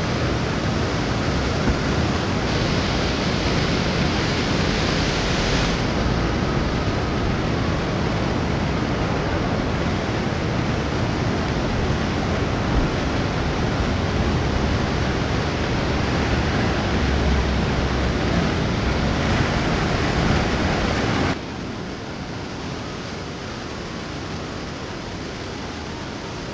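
Loud, steady rush of fast-flowing water. It drops to a quieter level about 21 seconds in.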